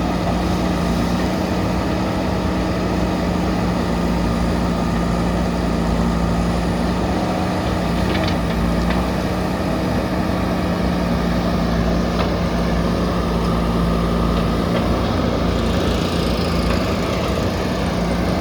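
JCB backhoe loader's diesel engine running steadily at an even pitch, with a few faint clicks about halfway through.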